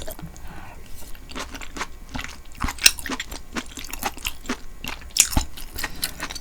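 Close-miked chewing of beef-tripe tteokbokki: a quick string of mouth clicks and bites, with louder ones about three and five seconds in.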